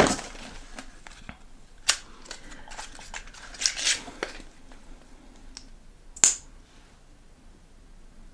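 Plastic cosmetic packaging being handled, a lip cream tube opened for swatching: a few sharp clicks, a short rustle about three and a half seconds in, and one more sharp, bright click a little after six seconds.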